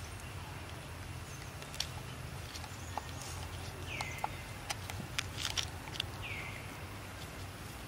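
Outdoor woodland ambience under a low steady rumble. A short high call falls in pitch twice, about two seconds apart, among scattered small sharp ticks.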